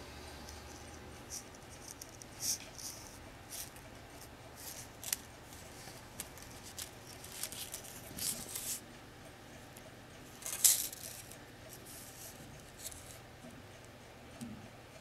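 Small metal chain and spiral wire pendant cage clinking and rattling in scattered light clicks as they are handled, the loudest click about two-thirds of the way in.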